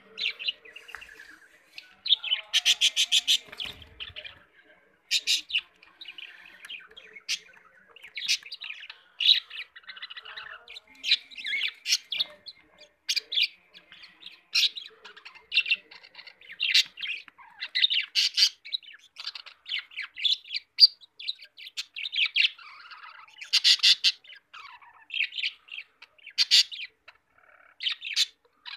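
A group of budgerigars chirping and chattering in short high calls, with a quick rattling run of clicks about two seconds in.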